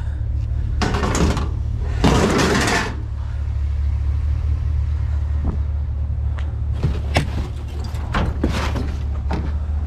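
A vehicle engine idles steadily under two loud bursts of clattering and rustling about one and two seconds in, followed by scattered clicks and scrapes of scrap being handled.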